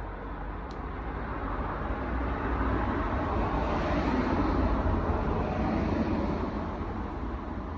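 A vehicle passing by: a steady low rumble with a broad whooshing noise that grows louder to a peak about four seconds in and then fades away.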